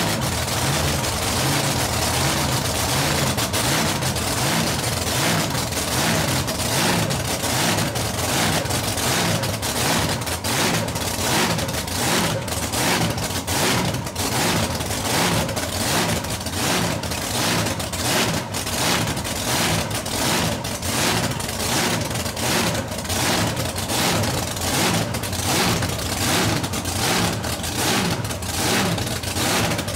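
Supercharged nitro-burning drag boat engine running at idle through open pipes: a loud, lumpy cackle, its firing pulses coming through as a steady, choppy beat that grows more distinct partway through.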